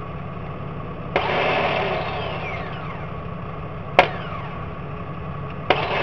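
A vehicle engine idling steadily, with a sharp click about four seconds in and two sudden, brief swells of louder noise, about a second in and near the end.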